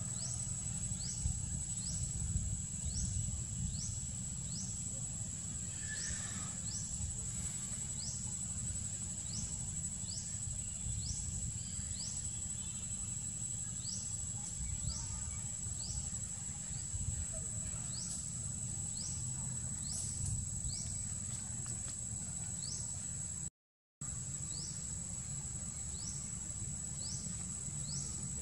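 Outdoor forest ambience. A steady high-pitched insect drone runs with a short high chirp repeating about every two-thirds of a second, over a low steady rumble. The sound cuts out for a moment near the end.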